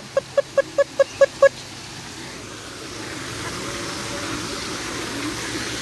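Chicken cackling: a quick run of short, even clucks, about five a second, that breaks off about a second and a half in. A steady rushing of a small waterfall then grows louder.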